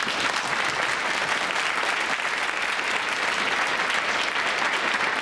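Studio audience applauding steadily after a song.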